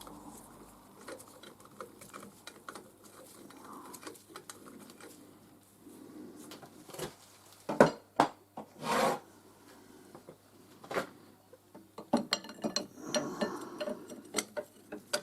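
Hand tools scraping and rasping on a metal fitting, with irregular clicks and knocks. The scrapes are loudest about halfway through and bunch together near the end.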